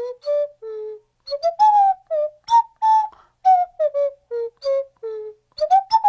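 An unaccompanied melody: a single line of short, separate notes with slight glides between them, whistle-like in tone, playing the song's opening tune.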